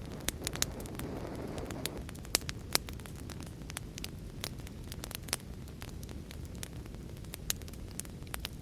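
Wood fire burning: a steady low rumble with frequent sharp crackles and pops at irregular intervals, and a brief rushing swell about a second in.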